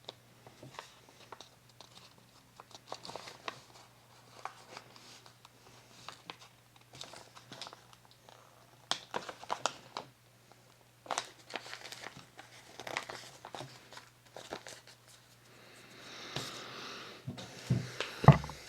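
Paper being handled: sheets rustling and crinkling in short, irregular bursts, with a longer rustling swell near the end followed by a couple of sharper knocks, the loudest sounds.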